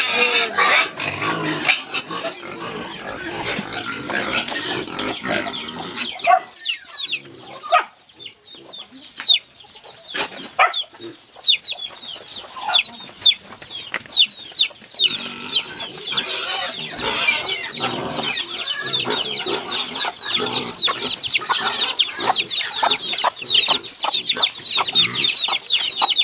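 Chickens clucking and peeping, many short high falling calls that grow dense in the second half, with scattered knocks and clicks in the middle.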